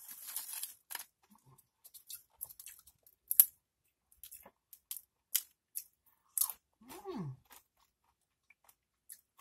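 Doritos tortilla chips rustling and crackling as a hand picks through a bowl of them, then scattered crisp crunches and snaps of the chips, the loudest a sharp crack about three seconds in. A short falling tone about seven seconds in.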